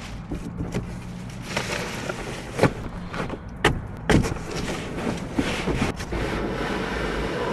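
A few scattered knocks and thumps of handling around a car, the sharpest a little after four seconds in, over steady wind noise on the microphone.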